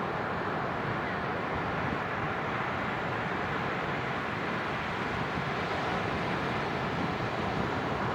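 Ocean surf on a sandy beach, a steady, even rush of noise with no single wave standing out.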